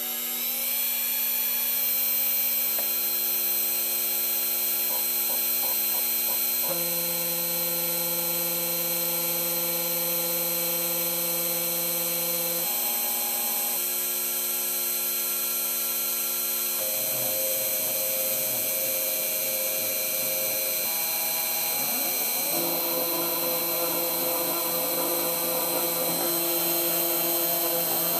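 Homemade CNC mill running, its spindle motor whining steadily as the bit mills a copper-clad FR-4 circuit board. Under the whine, lower motor tones hold steady and then jump to a new pitch every few seconds as the machine moves between cutting passes.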